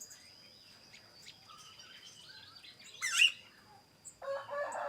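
Aviary birds chirping and twittering, with one loud, sharp, falling call about three seconds in. A thin steady high tone runs underneath until about four seconds in, when a rooster starts to crow loudly.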